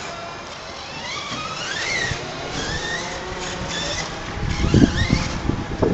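Radio-controlled car motor whining, its pitch rising and falling repeatedly as the car speeds up and slows. Over the last second and a half, wind buffets the microphone with a loud low rumble.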